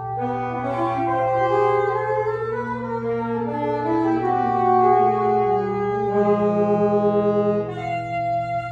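Free-jazz improvisation for saxophones and clarinet: several horns hold long, overlapping notes at once, each moving slowly to new pitches. Near the end some of the voices drop out, leaving a single held note.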